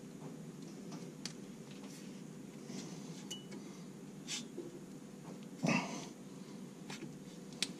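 Scattered light metallic clicks and taps of a rear disc brake caliper and pads being handled and fitted over the disc. There is one louder, brief sound a little before six seconds in.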